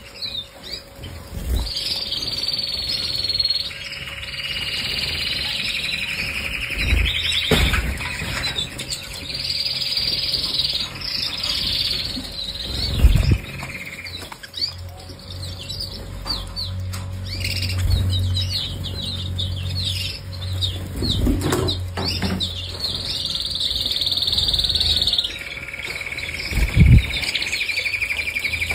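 Domestic canaries singing in an aviary: long rolling trills held for a second or more, alternating with quicker chattering phrases. There are a few short low thumps along the way.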